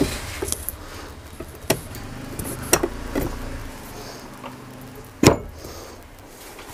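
Scattered metal clicks and knocks from the motor half of a monoblock water pump being handled and seated on its cast pump casing, with one loudest knock about five seconds in, over a low steady hum.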